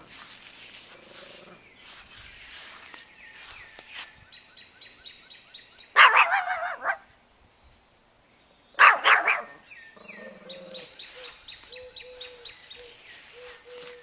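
Small dog barking: two short bursts of sharp barks about three seconds apart, with birds chirping faintly in the background.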